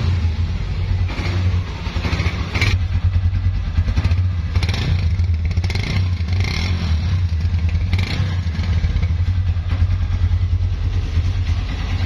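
Honda CB150F's single-cylinder air-cooled four-stroke engine running, freshly rebuilt with a new piston kit, valves and timing chain, and blipped up in revs several times. The engine runs steadily with no speech over it.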